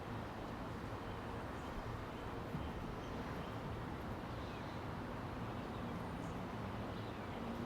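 Faint, steady outdoor background noise, a low hum, with a few faint short high chirps.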